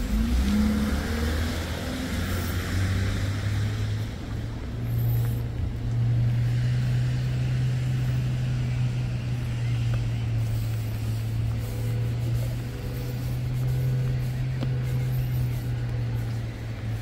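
An engine running with a steady low hum that steps up in pitch twice in the first few seconds, then holds level.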